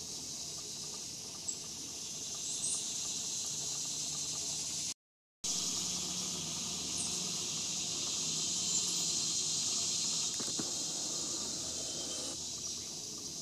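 Steady high-pitched insect chorus droning in the trees, unbroken except for a brief cut-out about five seconds in.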